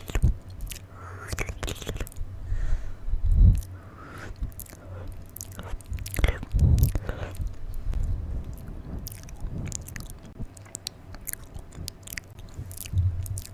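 Close-miked mouth sounds: a quick run of wet clicks and smacks from tongue and lips. A louder low thump comes about three and a half seconds in and another near seven seconds.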